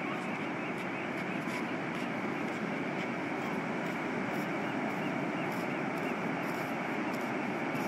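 Steady, continuous rush of ocean surf breaking along the beach.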